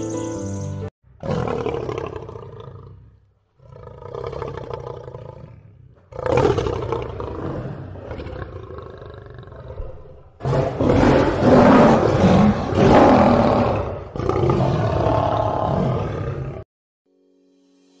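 A lion-roar sound effect, dubbed over the pictures: five long roars and growls one after another, the loudest in the middle, cutting off suddenly shortly before the end.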